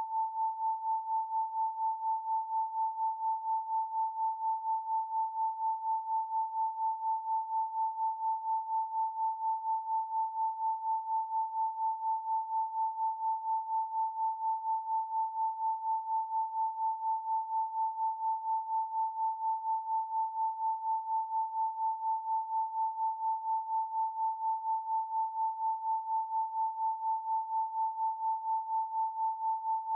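A pure 888 Hz sine tone held steady, its loudness pulsing evenly a few times a second.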